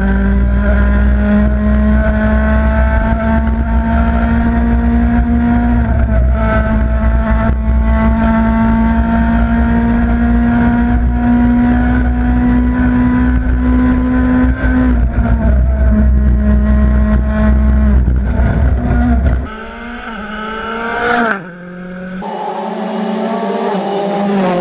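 Ford Fiesta RS WRC rally car's turbocharged four-cylinder engine running hard, its pitch climbing slowly and dropping back at gear changes a couple of times. About three-quarters of the way in the sound cuts off abruptly, followed by a short rising whine and the engine building up again near the end.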